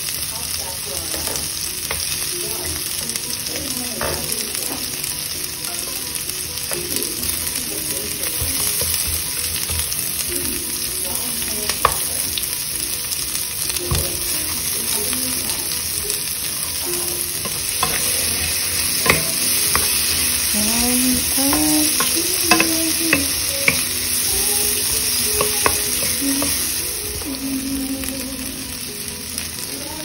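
Onions, tomato and meat sizzling in a nonstick frying pan, stirred with a wooden spatula. The steady hissing runs under scattered sharp taps of the spatula against the pan, which come more often in the second half; the sizzle eases a little near the end.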